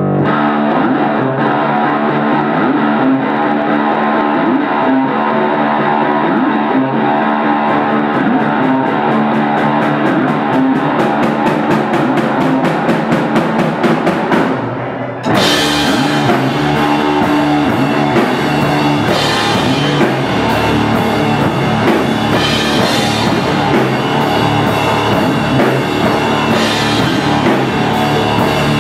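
A live rock duo playing: electric guitar and a drum kit. The drum strokes come faster and faster, the sound dips for a moment, and about halfway through the full band crashes back in with cymbals.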